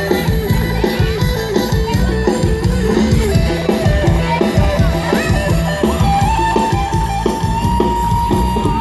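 Loud amplified band music with a steady drum beat, electric guitar and a held melody line.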